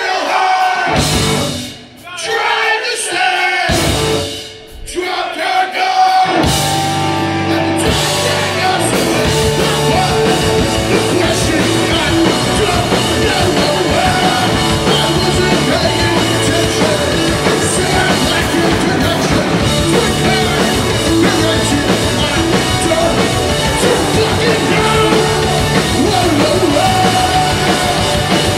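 Live punk rock band with electric guitars, bass, drums and shouted vocals. It opens with stop-start hits broken by short gaps, then the full band comes in about six seconds in and plays on steadily with the singer.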